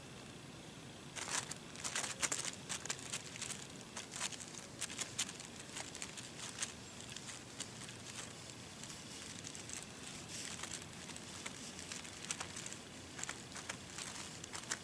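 Irregular soft crinkling and ticking handling noises, thickest in the first few seconds, as hands work at a fishing hook and line close by.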